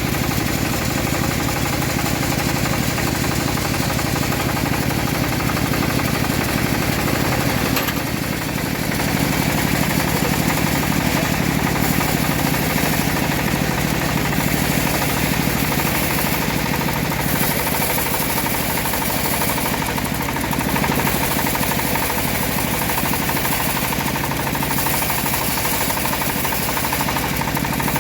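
Homemade engine-driven bandsaw mill running steadily while sawing a teak log, its engine beat overlaid by a high hiss that comes and goes several times.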